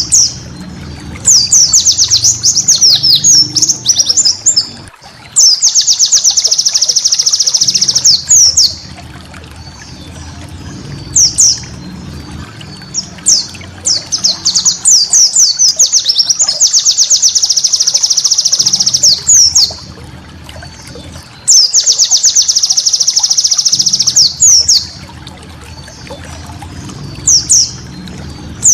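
Pleci (white-eye) singing a rapid, high twittering song in bursts of two to three seconds, about four times, with single sharp notes between the bursts. It is the ngeriwik style of song that keepers use as a tutor recording.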